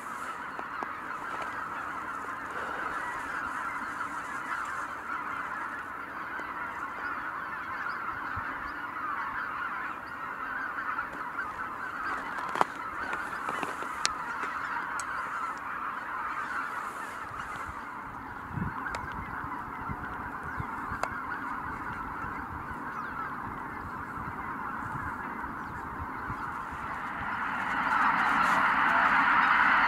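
A huge flock of greater white-fronted geese calling in a dense, continuous chorus of honking, which swells much louder near the end as the flock starts to take off. There are two sharp clicks about halfway through.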